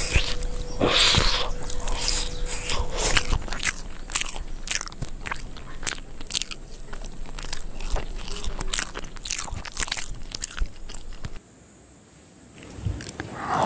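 Close-miked eating of a Korean fried chicken drumstick: biting and chewing the crispy coating, with many quick crunches and crackles. The sound drops away briefly about 11 seconds in, then another bite comes near the end.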